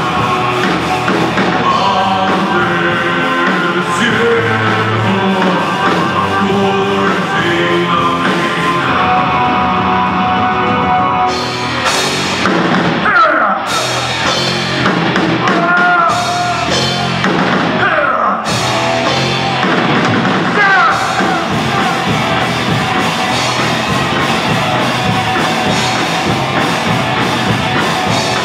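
Live heavy rock band playing loud: distorted electric guitars, bass guitar and a drum kit, with a singer's vocal in parts. In the middle stretch a lead line bends up and down in pitch.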